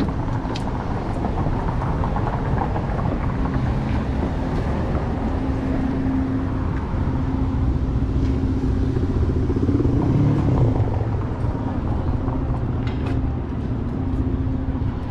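City street traffic: cars running and passing on a busy street, with a steady low rumble and hum. A vehicle passes louder about ten seconds in.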